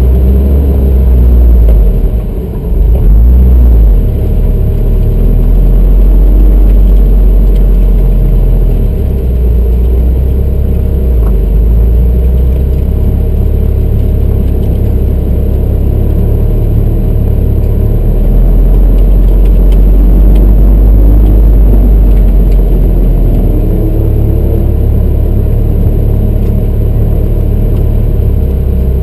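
Toyota MR2 Turbo's engine heard from inside its open-roofed cabin, revving up and down as it is driven hard through an autocross course, under a heavy low rumble. The level dips briefly about two and a half seconds in.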